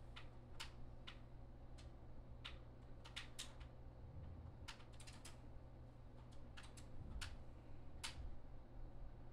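Faint, irregular light clicks, about one or two a second and sometimes in quick runs of three or four, over a low steady hum.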